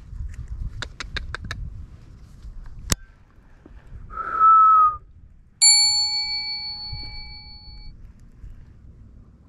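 A short, loud whistle sliding slightly down in pitch, then a single bright bell-like ding that rings out and fades over about two seconds. Earlier, a quick run of about five light clicks and one sharp click.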